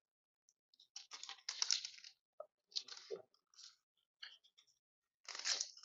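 Faint, short scrapes and rustles of hands working the label roll mount of a round-bottle labeling machine, loosening its lock.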